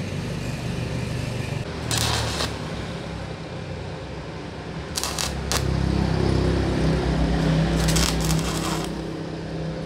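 Stick (MMA) arc welding with an INGCO 220A inverter welder: three short bursts of arc crackle, about 2, 5 and 8 seconds in, as the electrode is struck and run on thin square tubing, over a steady low hum. The current is high enough that the arc is burning through the thin steel a little.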